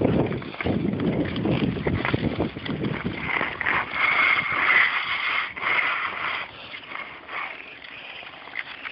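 Long-blade Nordic skates gliding and scraping over natural lake ice, a rough hissing swish, with a deep rumble in the first few seconds that gives way to a brighter, harder scrape in the middle.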